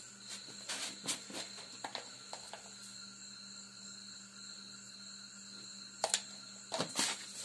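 Scattered light clicks and taps as a plastic salt container is handled and salt is spooned into a steel pot of potato sticks in warm water. The loudest knocks come near the end. A steady high-pitched trill runs underneath.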